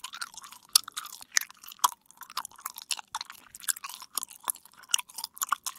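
Irregular small clicks, taps and rattles of plastic and metal parts being handled as an optical disc drive is taken apart by hand.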